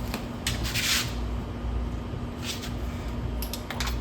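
Handling noise of a quick-connect spray nozzle being fitted onto a pressure washer gun: a short scraping hiss about a second in, then a few light metal clicks near the end.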